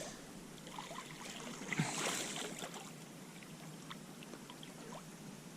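Faint water trickling and lapping around a kayak, with a few light clicks and a brief swell of splashy noise about two seconds in.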